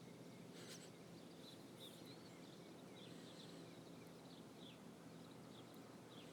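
Near silence: a faint steady low hum of room tone with scattered faint, short high chirps.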